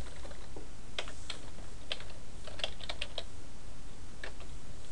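Typing on a computer keyboard: about a dozen irregular keystroke clicks, most bunched between one and three seconds in and a few more near the end, over a low steady hum.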